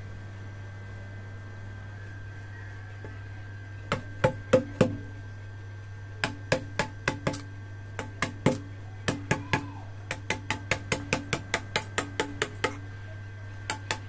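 Hand mallet striking a chisel to carve a natural-stone wall relief. The sharp taps begin about four seconds in, scattered at first, then come in quicker runs of about three a second, with a short pause near the end.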